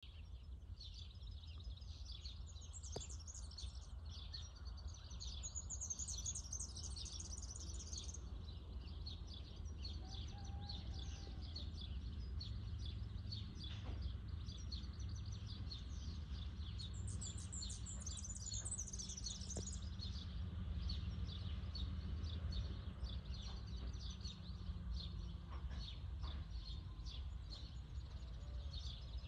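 Many birds chirping and singing in a dense chorus, over a steady low rumble.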